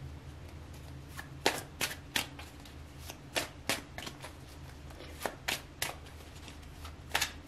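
A tarot deck being shuffled by hand: a string of short, irregular card slaps and clicks starting about a second in.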